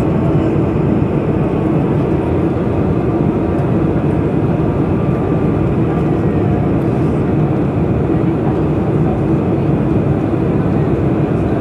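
Boeing 747-400 cabin noise on final approach with the flaps extended, heard inside the cabin at a window seat behind the wing. A steady, loud roar of engines and airflow, with faint thin whining tones above it.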